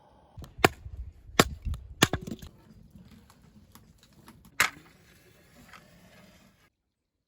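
Firewood being broken up by hand: four loud, sharp wooden cracks with smaller knocks and splintering between them, the first three under a second apart and the last a couple of seconds later.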